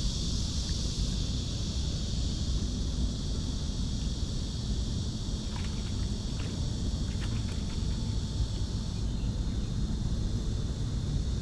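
Steady outdoor ambience: a constant high drone of insects over a low rumble, with a few faint clicks in the middle.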